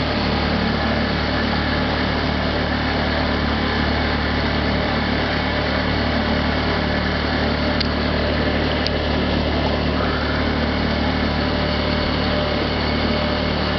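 Outboard boat motor running steadily at constant speed, an unchanging low engine hum.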